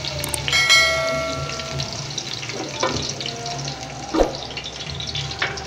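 Minced garlic sizzling in hot oil in a steel karahi, stirred with a silicone spatula that scrapes and knocks against the pan. A short ringing tone sounds about half a second in and fades over a second or so.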